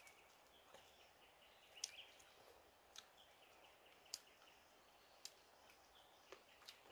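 Near silence: faint forest background with a few small bird chirps and several sharp, isolated clicks spaced about a second apart.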